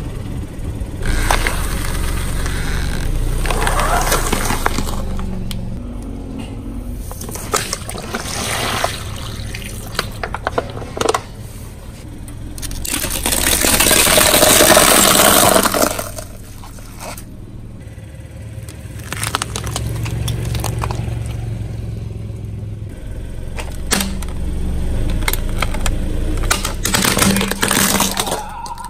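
A car tyre rolling slowly onto objects and crushing them one after another: corn cobs set in green floral-foam blocks, a toy snake, a small plastic toy. Scattered cracks and snaps sit over the low rumble of the car, with a louder hissing, gushing stretch of a couple of seconds about halfway through.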